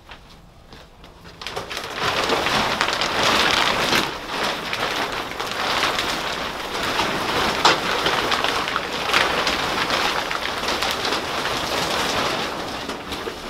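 Silver foil wrapping crinkling and rustling loudly as it is pulled off a large machine, with dense crackles. It starts about a second and a half in and keeps up until just before the end.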